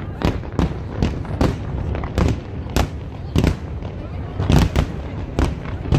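Aerial fireworks shells bursting in quick succession, about two sharp bangs a second over a continuous low rumble from the display.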